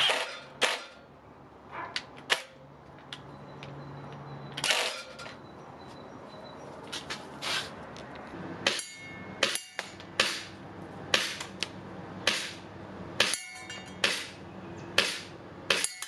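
A series of sharp cracks and metallic pings from airsoft shots striking a thin metal target. They come irregularly, growing to about one a second in the second half, and some ring briefly.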